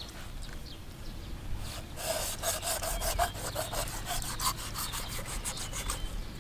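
Knife sawing back and forth through a shark's body on a wooden cutting board: quick scraping strokes, about five a second, starting about two seconds in and stopping near the end.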